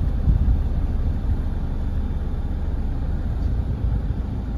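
Steady low rumble of a car's engine and tyres heard from inside the cabin as the car rolls slowly.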